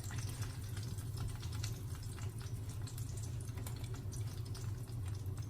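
Pot stickers frying in hot oil in a pan: a steady fine crackling sizzle, over a low steady hum.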